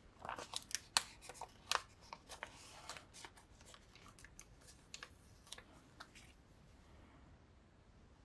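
A plastic sticker sheet crinkling and crackling as it is handled and stickers are peeled off it. There is a dense run of sharp crackles in the first three seconds, then a few scattered clicks, and the sound dies away near the end.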